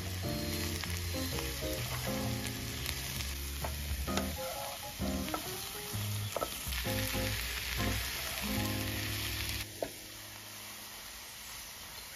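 Sliced mushrooms and onion sizzling as they fry in a nonstick frying pan, stirred with a wooden spatula that clicks against the pan now and then. Background music plays until about ten seconds in.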